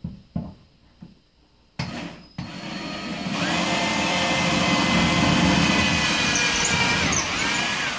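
Electric drill boring a pilot hole into the wall for a wall anchor: a few short trigger blips, then the motor runs steadily for about six seconds, its whine sagging in pitch near the end.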